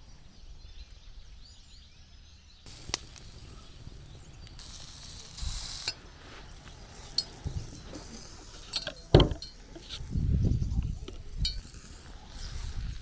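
Hissing sizzle with scattered clinks and knocks, like metal utensils against a pot. A louder low rumble comes in a little past the middle.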